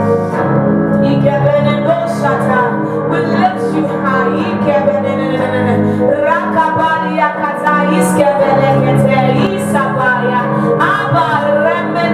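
Worship music: a singing voice over held instrumental chords and a low bass line.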